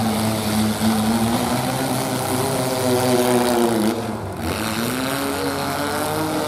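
Demolition derby compact trucks' engines revving hard, the pitch easing down about four seconds in and then climbing again.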